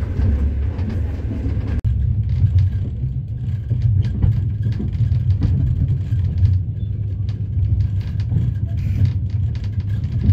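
Steady low rumble of a moving vehicle, with a brief break about two seconds in.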